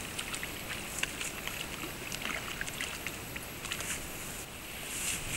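Shallow stream water flowing and splashing close by, with many small irregular splashes and spatters.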